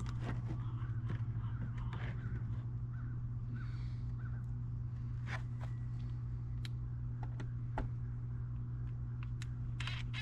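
Birds calling a few short times over a steady low hum, with scattered sharp clicks and knocks from hands and tools at work.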